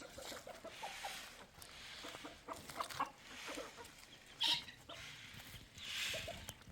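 Chickens clucking in short, scattered calls, with soft swishing noises and one sharp noisy rustle about four and a half seconds in.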